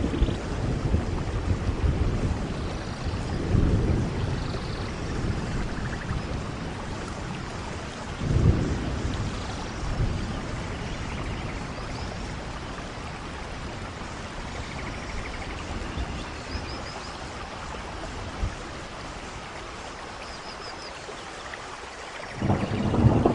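Rainforest thunderstorm: steady rain with rolling thunder that swells a few times, and a sudden louder clap of thunder near the end.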